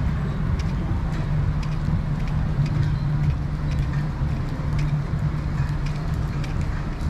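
Rain falling, with scattered drops ticking sharply at irregular intervals over a steady low rumble and hum.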